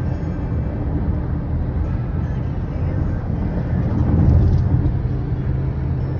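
Steady road and tyre noise with engine hum, heard from inside a car's cabin at freeway speed, swelling slightly about four seconds in.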